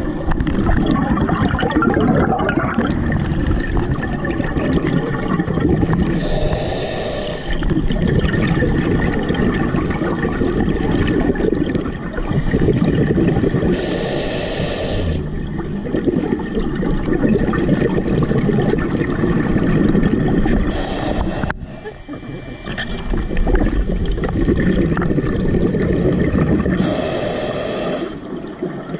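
A scuba diver breathing through a regulator underwater. About every seven seconds there is a short hissing inhalation, four in all, and between them long stretches of exhaled bubbles.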